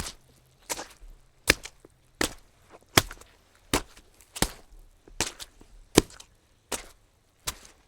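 A steady series of sharp knocks, evenly spaced at about one every three-quarters of a second, each followed by a fainter click.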